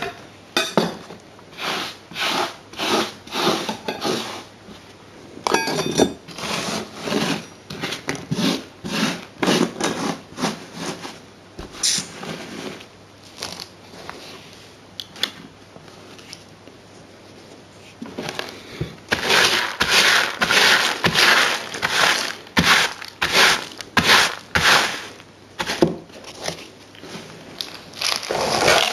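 Repeated scraping of a metal hand tool across a gritty model-railway baseboard, scratching up dried sand, grit and ballast in runs of quick strokes, about two or three a second. The strokes thin out for a few seconds in the middle and come loudest and densest about two-thirds of the way through.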